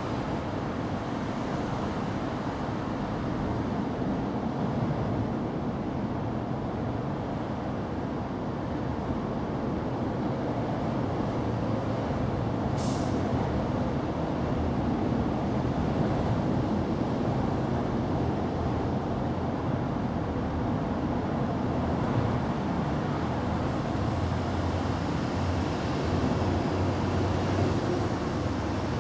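Steady low rumbling background noise, with one short hiss about thirteen seconds in.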